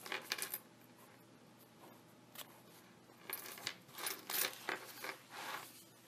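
Handmade paper junk journal being opened and handled: short rustles and clicks of its cover and pages, once near the start and in a cluster from about three to six seconds in.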